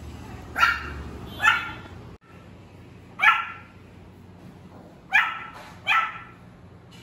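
Pomeranian puppy barking: five short, high-pitched little barks, the first two about a second apart and three more over the following few seconds. These are a young puppy's first barks, still small and thin.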